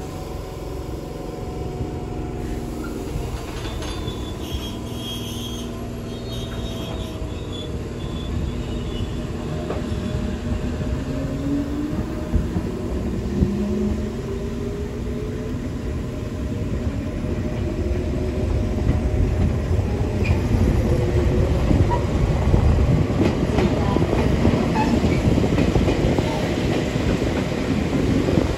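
Electric train's motors whining up in pitch as it gathers speed, followed by wheels rumbling and clacking on the rails, growing louder toward the end.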